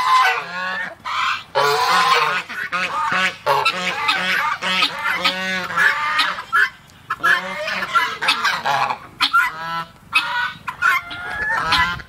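Geese honking over and over in quick series, several calls a second, with a few short pauses between bouts.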